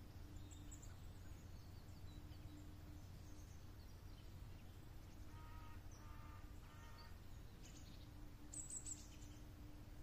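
Faint open-air ambience with scattered bird chirps: three short pitched calls about halfway through, and a brief burst of high chirping near the end, the loudest thing in it.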